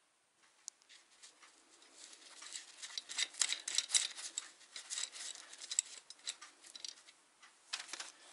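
Rapid clicks and light metallic clinks of hand tools on small metal parts, as motor mounting brackets are unfastened and handled. The clicking grows busier about two seconds in and eases off near the end.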